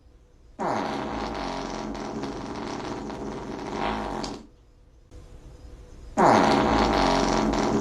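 Two long fart sounds. The first lasts nearly four seconds; the second starts about six seconds in and is still going at the end.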